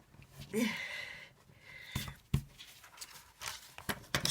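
A person's heavy breathy exhale with a short voiced groan, then a sharp click about two seconds in and a few quicker clicks and taps near the end from tools handled on a table.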